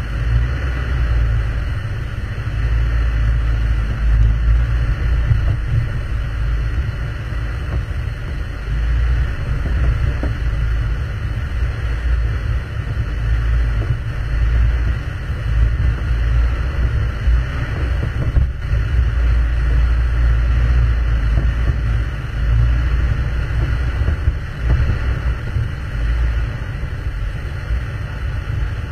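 Off-road vehicle crawling slowly over a rocky dirt trail, heard from the vehicle carrying the camera: a loud low rumble of engine and rough-road jostling that swells and dips unevenly.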